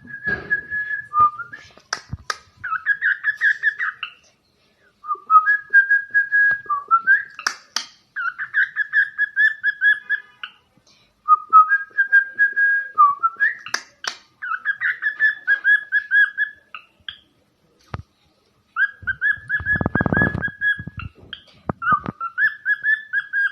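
Cockatiel whistling the same short tune four times over, each phrase a few seconds long: a few held notes, then a quick warbling trill. A brief low rustle comes about three quarters of the way through.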